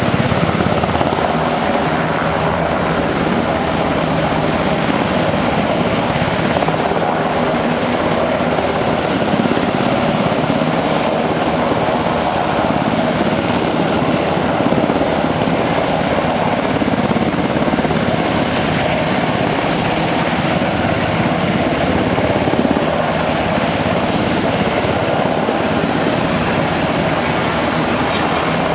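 Two UH-60J Black Hawk helicopters hovering low, their rotors and turbine engines running steadily.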